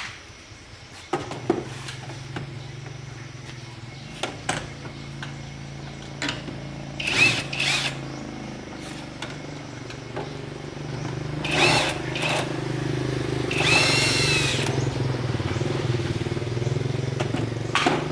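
A small motor starts about a second in and runs steadily, with scattered clicks and a few short high squeals over it.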